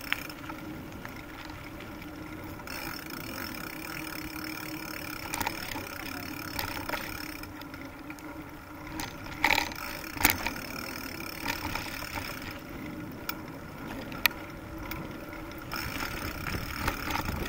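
Bicycle riding along a dirt path: a steady rolling noise with a few sharp rattles and knocks from the bike, the loudest about ten seconds in.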